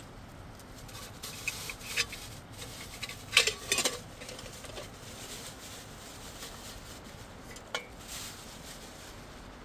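A few sharp clicks and clatters, like hard objects such as pots or utensils being handled, the loudest cluster about three and a half seconds in and a single one near the end, over a steady low hiss.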